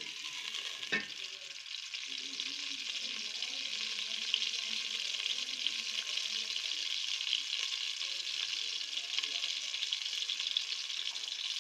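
Sliced onions sizzling in hot oil in a metal pot as they fry toward golden, stirred with a wooden spoon. The sizzle is a steady hiss with small crackles, and there is a single knock about a second in.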